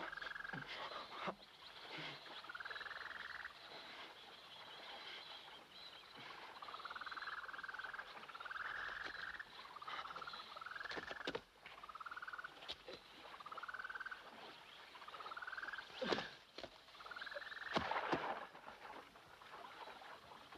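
Faint animal calls: about a dozen short chirps that rise and fall in pitch, one every second or two, over a steady high trill. A few sharp clicks cut through.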